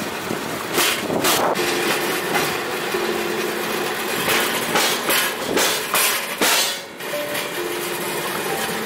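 Pedal-powered railway bike rolling along steel rails: a steady rumble of wheels on the track, broken by sharp clacks, a pair about a second in and a cluster from about four to seven seconds in.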